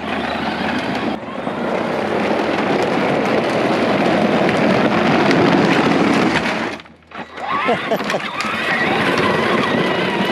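Power Wheels Dune Racer ride-on toy driving: hard plastic wheels rolling and scraping over the ground with its upgraded electric motors running, a loud rough rattling noise that cuts out briefly about seven seconds in, then starts again.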